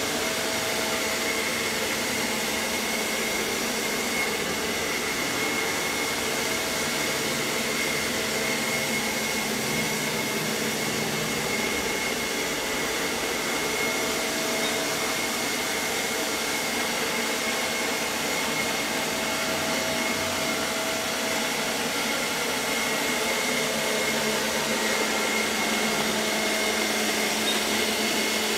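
ILIFE V5S robot vacuum running: a steady motor and suction hum with a thin high whine held throughout.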